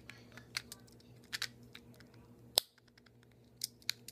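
Fidget cube switch and buttons being clicked: a string of sharp, irregular clicks, with one much louder click about two and a half seconds in, over a faint steady electrical hum.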